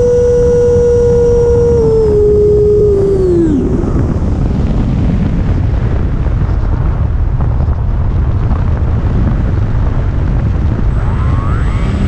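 Electric ducted fan of an FMS Futura 80 mm 6S RC jet, heard from an onboard camera with wind on the microphone. A steady high whine steps down, then falls away as the fan spools down about three and a half seconds in. That leaves a steady rush of wind, and near the end the fan spools back up with a rising whine.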